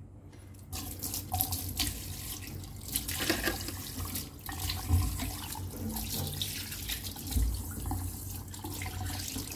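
Tap water running into a stainless-steel sink as fish are rinsed by hand. It starts within the first second, with scattered knocks and dull bumps of handling against the sink.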